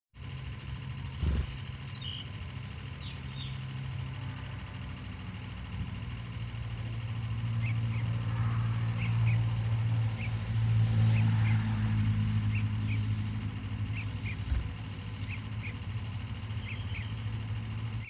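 A steady low engine hum that swells in the middle, with faint thin high chirps repeating about three times a second over it, from nestlings begging in the nest.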